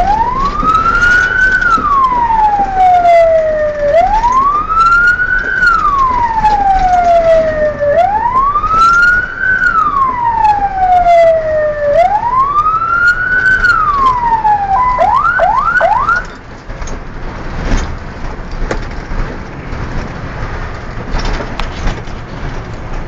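Fire engine's wail siren, heard from inside the cab, sweeping slowly up and down about every four seconds. About two-thirds through it switches to three quick yelps and then cuts off, leaving the truck's engine and road noise with some knocks.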